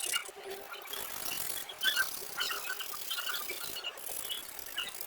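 Coloring strokes on paper: an uneven scratchy rubbing of a coloring tip across the page, with many short high squeaks.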